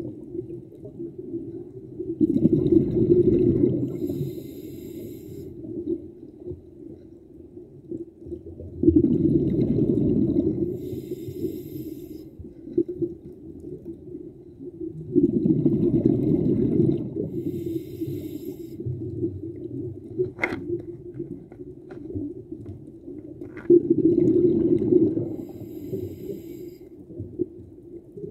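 A scuba diver breathing through a regulator underwater, about one breath every seven seconds: four times a loud low rush of exhaled bubbles, each followed by a thin hiss. Two sharp clicks sound a little past the middle.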